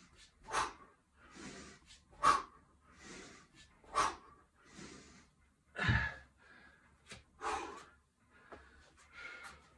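Sharp, forceful exhales, one with each one-handed kettlebell swing, about every 1.7 seconds. About six seconds in comes a dull thud as the kettlebell is set down on the mat, then heavy breathing.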